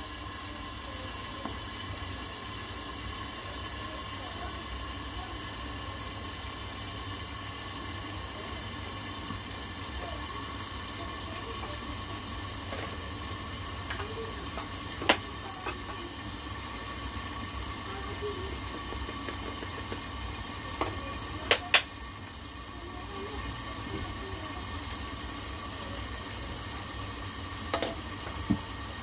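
Chicken cooking in oil in a covered kadai on a gas burner: a steady low hiss and sizzle under the lid over a constant hum, with a few sharp clicks about halfway through, a close pair a little later and one more near the end.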